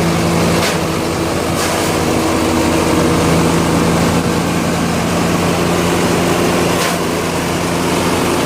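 Engine-driven chipper-shredder running at a steady speed while it chips dried coconut palm fronds: a constant engine drone under a noisy grinding. A few short sharp cracks come through, about a second in, near two seconds and near the end.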